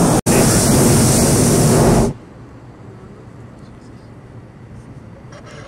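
Hot-air balloon's propane burner firing loudly with a steady rushing blast, broken by a split-second gap just after the start and shutting off about two seconds in, leaving a low background.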